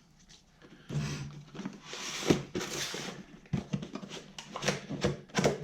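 Packaging being handled while a boxed grinder is unpacked: irregular rustling with scattered knocks and clicks, starting about a second in.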